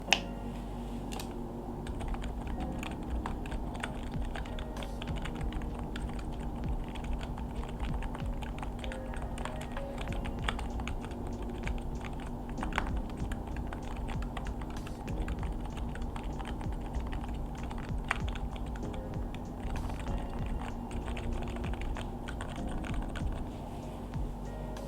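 Continuous typing on a RULE60 keyboard with Topre switches and foam in the case, an irregular run of key presses with soft music underneath.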